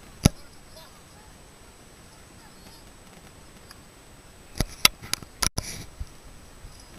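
Handling noise from a handheld camera: a sharp click about a third of a second in, then a quick cluster of clicks and knocks a little past halfway. Under them is a faint outdoor background with a faint steady high whine.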